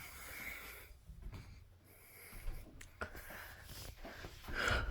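Faint handling noises with a few light clicks as the stick vacuum's power cord is plugged into an outlet, then a short breathy hiss near the end.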